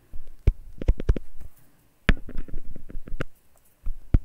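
Irregular sharp clicks and taps from a stylus on a pen tablet during handwriting.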